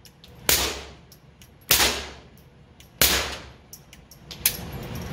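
Three suppressed .22 LR pistol shots from a Taurus TX22 fitted with a SilencerCo Sparrow suppressor, firing subsonic 38-grain rounds about a second and a quarter apart. Each is a sharp pop with a short echo trailing off.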